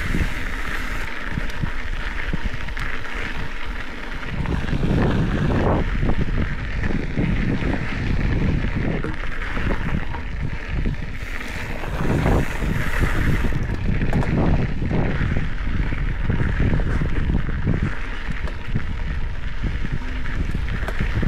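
Wind noise on the microphone over the rumble and rattle of a Specialized Epic 8 Evo full-suspension mountain bike rolling along a dirt trail, swelling louder a few times.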